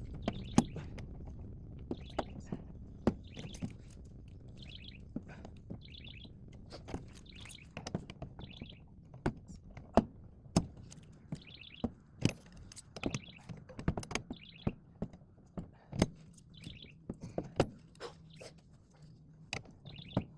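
Scattered sharp metallic clinks and knocks of hand tools and a press tool being handled, with a bird chirping over and over in the background.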